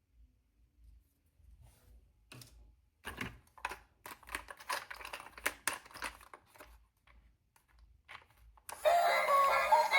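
Toy packaging being handled and opened by hand: a run of irregular clicks, crackles and light tearing of plastic and cardboard. Near the end, loud music with synthetic singing starts.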